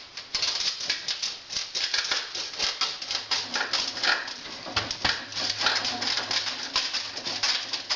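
Dense, irregular scraping and clicking as a cast-iron stove part is twisted and pushed into its conical seat.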